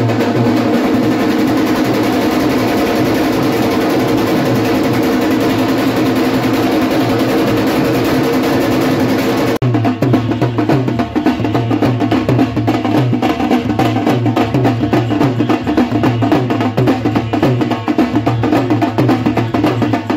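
Several dhols beaten with sticks in a fast, loud, unbroken rhythm. About halfway through the sound cuts abruptly to another stretch of dhol drumming with sharper, more clearly separate strokes.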